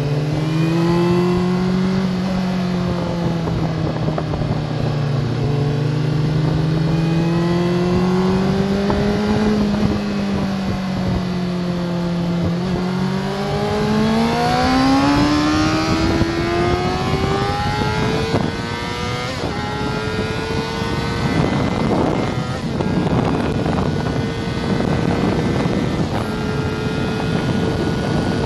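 Honda sportbike engine heard from on board, running at low revs with the pitch wavering through a slow corner. About halfway through the throttle opens and the engine pitch climbs steadily under hard acceleration, then holds high and steady at top speed with wind rushing over the fairing.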